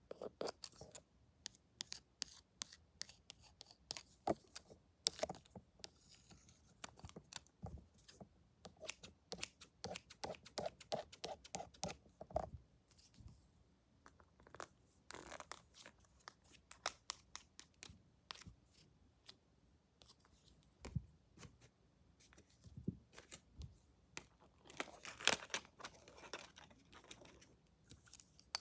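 Close-miked scissors snipping in irregular clicks, with a quick, even run of snips partway through and a denser burst of scraping snips near the end.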